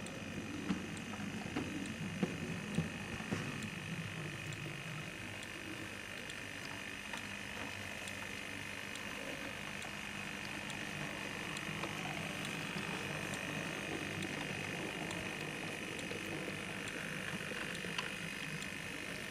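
Model LMS 4F steam locomotive running on track: a steady electric motor whir with light, regular ticks from the wheels, and a few louder knocks in the first few seconds.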